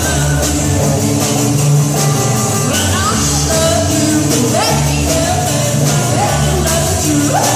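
Rock and roll band playing with guitar, bass and a steady drum beat, and a voice singing.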